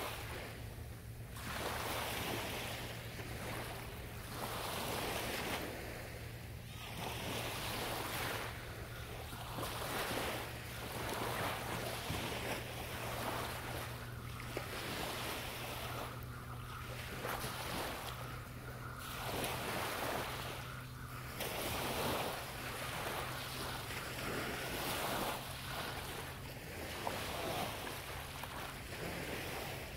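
Small waves breaking and washing up a beach, swelling and fading every couple of seconds, over a steady low hum.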